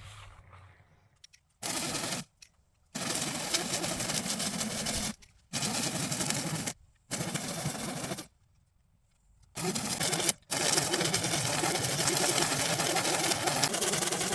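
Lawn mower running in a string of short stretches that start and stop abruptly. The last stretch runs on steadily from about ten seconds in.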